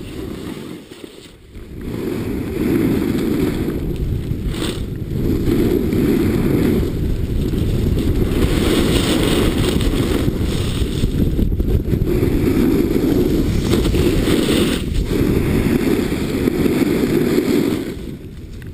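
Snowboard sliding and carving through deep powder snow: a loud rushing scrape that swells and eases every couple of seconds as the rider turns.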